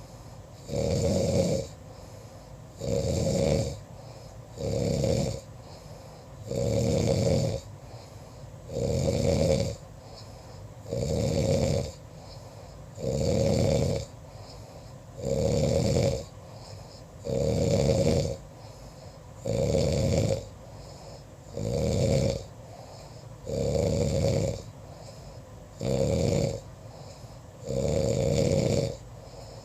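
A person snoring in a steady rhythm, one snore roughly every two seconds, each lasting about a second.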